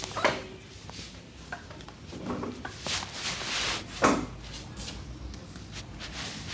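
A barber's hands working during a massage: sharp strikes, a strong one just after the start and the loudest about four seconds in, with a stretch of rubbing just before it.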